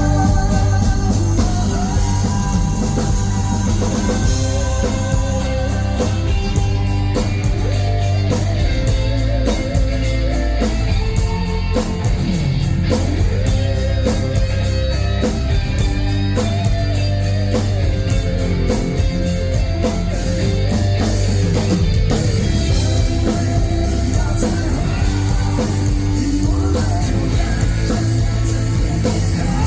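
Live rock band playing on after the sung verses: drum kit, bass and electric guitar, with a pitched line that bends up and down over a driving beat and a fast run of cymbal strokes through the middle.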